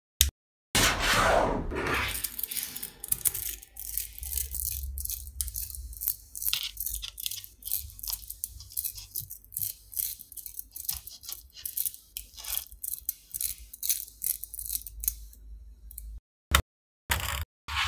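Small neodymium magnetic balls clicking and rattling together as they are pulled off a clump and separated in the hands: a fast, irregular stream of tiny sharp clicks. It follows a short rushing noise at the start and breaks into a few scattered clicks near the end.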